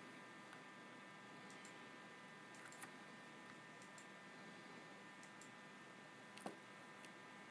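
Near silence with a few faint clicks of small push-buttons being pressed, the sharpest about six and a half seconds in, over faint steady high tones.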